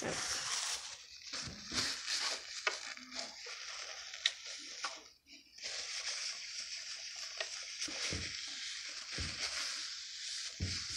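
Toilet paper rustling and crumpling in the hands, with a few small clicks.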